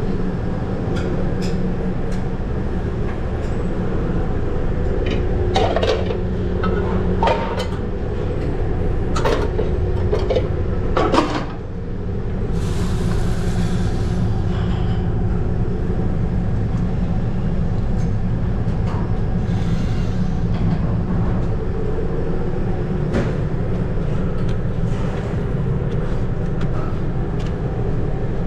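Commercial kitchen at work: a steady low drone of ventilation over the cooking line, with repeated clanks and clicks of metal pans and utensils, busiest in the first half. A brief hiss comes in about thirteen seconds in.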